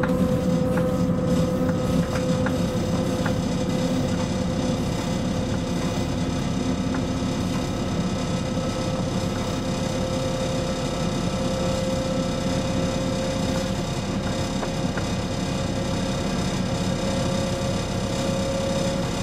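ČD Cargo class 340 electric locomotive heard from inside its cab while running: a steady rumble of wheels on rail with a held, even tone from the locomotive's equipment, and a few faint ticks in the first few seconds.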